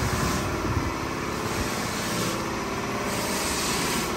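A motor running steadily, with a hiss that swells and fades about every two to three seconds.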